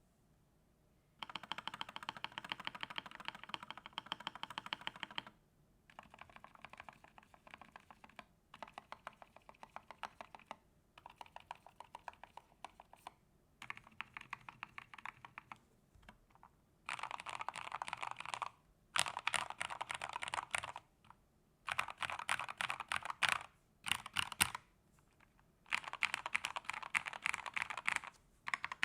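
Epomaker GK87S mechanical keyboard with lubed Gateron Milky Yellow switches on a steel plate, foam-dampened and tape-modded, being typed on fast. The keystrokes come in runs of a few seconds with short pauses between them, and the runs in the second half are louder.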